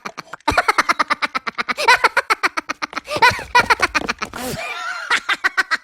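A person laughing hard, a fast run of repeated "ha" sounds that breaks off briefly near the end and then picks up again.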